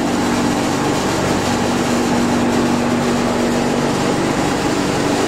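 Steady mechanical hum with a hiss over it and one constant low tone, like a household fan or air-conditioning unit running.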